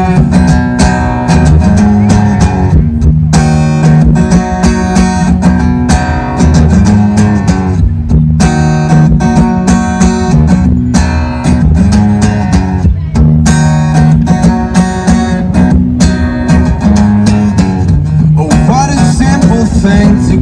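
Acoustic guitar played live and amplified through a stage PA: picked notes over a bass line that repeats every couple of seconds.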